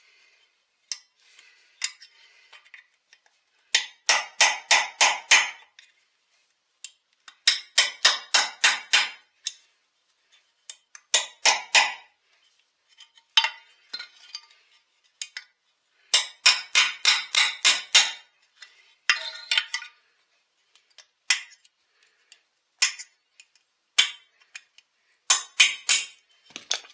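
Quick bursts of sharp metal-on-metal tapping, five to eight strikes at a time with short pauses between: light hammer blows working a main bearing out of a Husqvarna 263 chainsaw crankcase.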